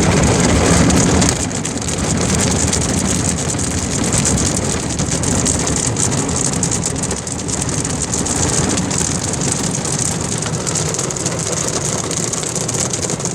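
Water jets of a Ryko Soft Gloss Max automatic car wash spraying and drumming on the car's body and windows, a loud, steady hiss heard from inside the cabin. It eases slightly about a second in.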